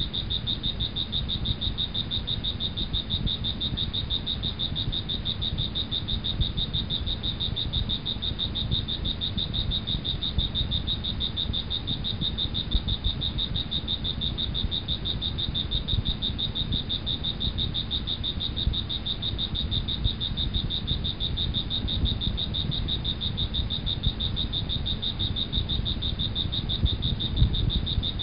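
Ambient night chorus: a steady, high-pitched, fast-pulsing trill that never stops, with a low rumble beneath it.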